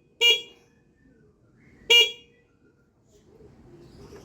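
Hella motorcycle horn giving two short toots, one just after the start and one about two seconds in.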